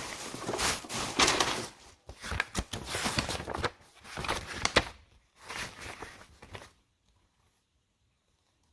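Paper rustling and handling noise close to the microphone as a printed instruction manual is leafed through, with its pages turned. Irregular crinkles and sharp clicks stop abruptly about seven seconds in.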